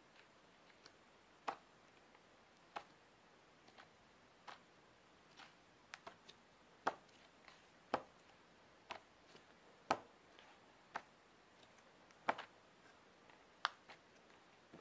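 Pages of a large hardback art book being turned one after another, each turn a short, crisp flick, at an uneven pace of roughly one a second.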